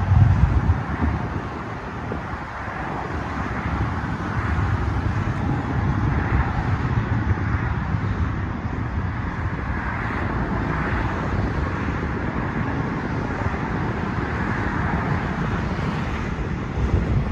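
Wind rushing over the microphone aboard a container ship under way, a steady noise with a low rumble that dips for a moment about a second in and swells briefly near the end.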